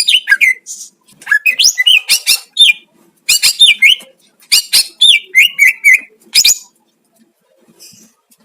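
Cucak ijo (green leafbird) singing loud, fast phrases of whistled notes and quick pitch-gliding chirps, in several bursts, then falling silent for the last couple of seconds. This is the kind of 'master' song kept birds are played to rouse them to sing.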